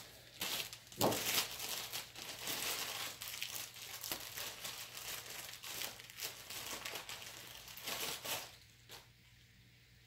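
Packaging crinkling and rustling as the box contents are handled and unpacked, with irregular crackles and small tears. It stops about eight and a half seconds in.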